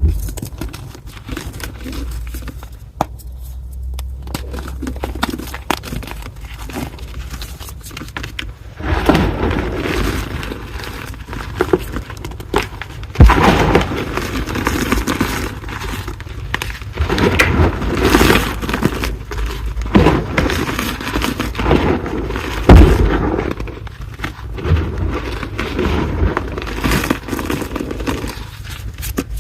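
Reformed gym chalk block being crushed: gritty crunching and crumbling with a few sharp cracks. Quieter at first, with louder, denser crunching from about nine seconds in.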